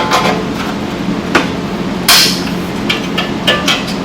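Metal clanks and clicks of vise grips and steel exhaust springs being unhooked from the muffler of a Polaris RZR 900S, a few separate knocks with the loudest about two seconds in.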